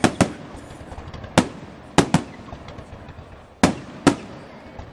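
Aerial firework shells bursting: about six loud, sharp bangs at irregular intervals, two of them close together, with fainter pops and crackles between.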